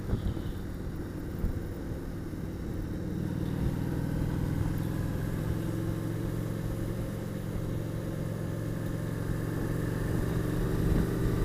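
Motorcycle engine running at a steady cruise as the bike rides along, recorded from a camera mounted on the bike. The engine note gets stronger about three seconds in and then holds steady.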